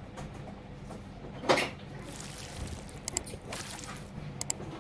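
Handling noise from fitting PVC wall panels: one knock about a second and a half in, then a few light clicks, over a low steady hum.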